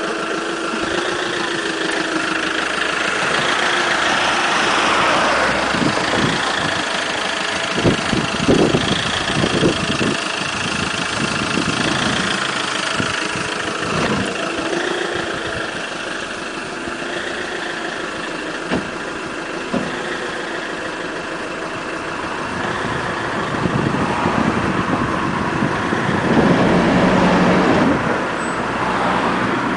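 Box truck's engine running at low revs as the truck creeps slowly forward out of a narrow driveway, with a few short knocks about eight to ten seconds in.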